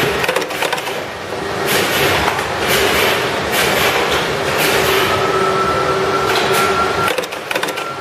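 Workshop machinery running: a steady mechanical din with a hissing burst about once a second. A faint steady high tone joins about five seconds in.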